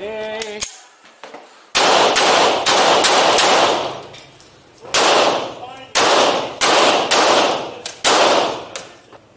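A short electronic beep, typical of a shot timer's start signal, then a semi-automatic handgun fired rapidly in three quick strings of shots with short pauses between, each shot ringing in the reverberant indoor range.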